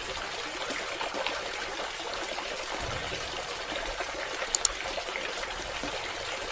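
Water from a small DIY submersible pump trickling and splashing steadily, with two brief clicks about four and a half seconds in.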